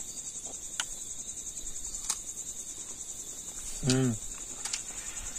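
Crickets chirring in a steady high trill through the night. A few faint clicks sound through it, and a person gives a short hum about four seconds in.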